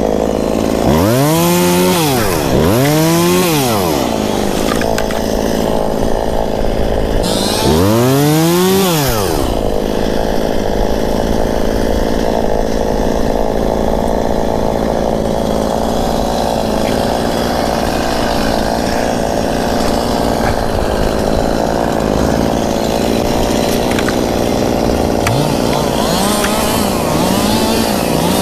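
Chainsaw revved up and back down three times in the first nine seconds or so, running steadily in between and after, with a few lighter revs near the end, as trees are cut back from around a trail sign.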